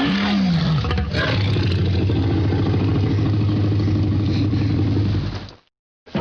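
Dinosaur roar sound effect: a pitched call gliding down in pitch at the start, then a long, low rumbling growl that fades out about five and a half seconds in.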